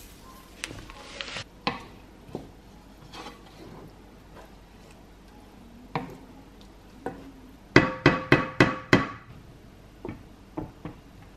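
Spoon stirring couscous in a nonstick pan, with scattered scrapes and clicks, then a quick run of five or six ringing clinks against the pan about eight seconds in. A few lighter knocks follow near the end as a glass lid is set on the pan.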